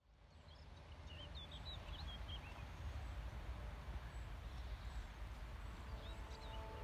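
Outdoor field ambience: a low steady rumble with small birds singing, chirping about a second in and again near the end. Soft sustained music tones fade in near the end.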